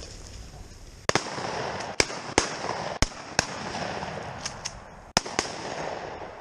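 A string of shotgun shots fired at a flushed game bird, sharp cracks coming singly and in quick pairs, each followed by a short echo.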